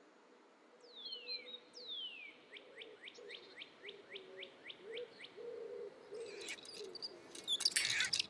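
Bird-like whistled calls: two long falling whistles, then a quick run of about a dozen short downward chirps, over a faint low hum. Near the end a denser flurry of sharp chirps and clicks sets in.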